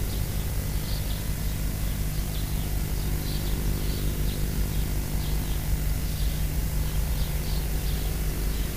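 Steady hiss and low hum, with faint short high chirps scattered throughout.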